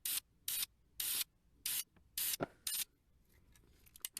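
Krylon aerosol spray paint can giving six short, quick bursts of hiss about half a second apart, light misting passes of touch-up paint.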